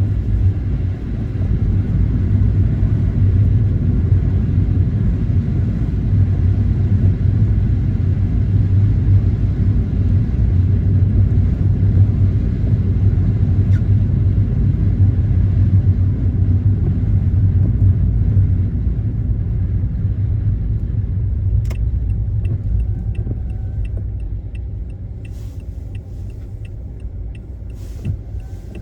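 Car driving, heard as a steady low rumble of road and engine noise that eases as the car slows near the end. About three-quarters of the way through, a turn-signal indicator starts ticking about twice a second.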